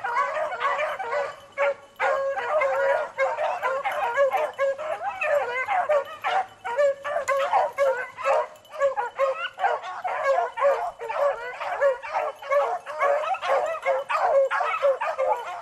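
A pack of beagles baying without a break, many voices overlapping, as they run a rabbit on a hot track.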